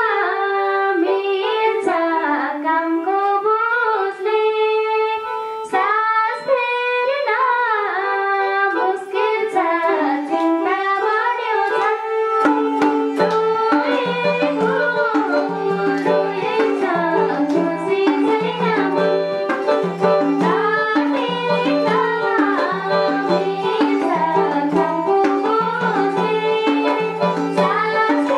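A woman singing a Nepali dohori folk song into a microphone with electronic keyboard accompaniment. About twelve seconds in, the singing gives way to an instrumental interlude: a repeating keyboard melody and bass line over a hand-drum beat.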